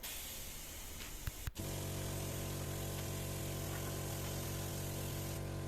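Electric paint sprayer applying lacquer: at first only a hiss, then after a short break about a second and a half in, a steady motor hum with a spray hiss sets in.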